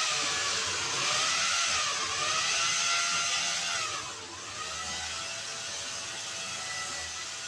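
A drill screaming: a high whine over a hiss, wavering up and down in pitch. About four seconds in the pitch dips and the level drops, and the whine then runs on steadier and a little quieter.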